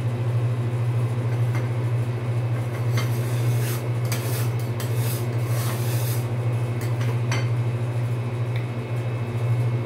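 Metal spatulas scraping and clicking on a stainless-steel ice cream cold plate, busiest in the middle stretch, over a steady low machine hum.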